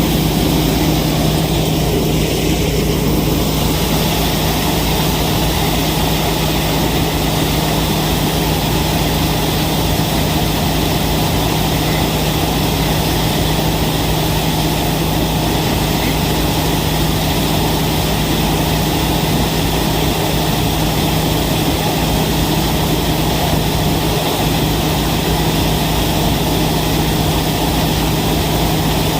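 Vikas 315 tractor-mounted combine harvester on a Swaraj 963 tractor, running steadily under diesel power with an unchanging low hum and a constant engine pitch.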